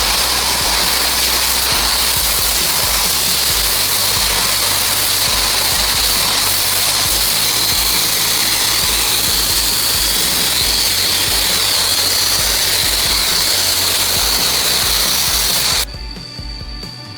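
A loud, steady hissing rush that stops abruptly near the end, followed by background music.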